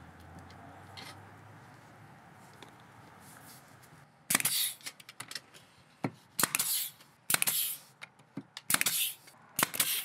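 Pneumatic brad nailer firing about five times, starting about four seconds in, as trim moulding is nailed to a wooden pilaster base. Each shot is a sharp snap followed by a short hiss of air.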